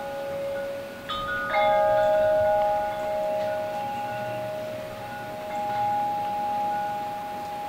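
Wind chimes ringing. A few notes strike about a second and a half in and are the loudest; they ring on and fade slowly while more notes join later.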